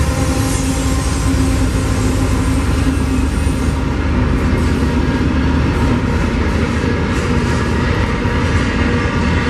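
Several Union Pacific diesel-electric locomotives passing close under load: a loud, steady engine rumble with a low drone, mixed with steel wheels rolling on the rails as the first double-stacked container cars follow.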